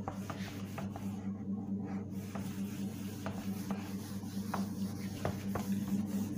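Cloth duster wiping a whiteboard clean: irregular rubbing strokes with short scuffs, over a steady low hum.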